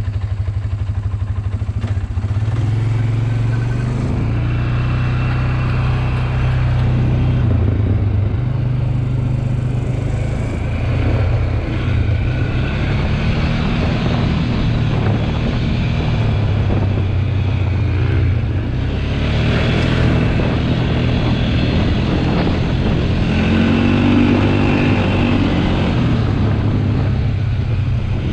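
ATV engine running under way, its pitch rising and falling as the throttle and speed change.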